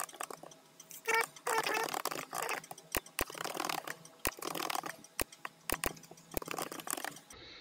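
Fast-forwarded computer keyboard typing and mouse clicks, sped up into a rapid chatter of keystrokes. Sharp single clicks are scattered through the second half.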